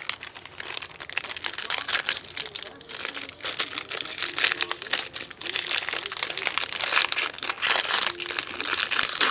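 Plastic trading-card pack wrappers crinkling as packs of hockey cards are handled and opened, a busy, irregular crackle that runs on without pause.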